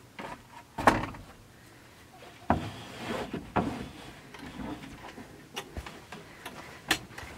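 Wooden knocks and scrapes as a chicken coop's door is opened and a wooden ramp is set in place: one sharp knock about a second in, then a few more thuds and a rustle.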